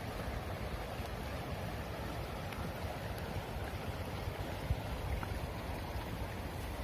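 Steady rushing of river water with low wind rumble on the microphone, and a faint knock about five seconds in.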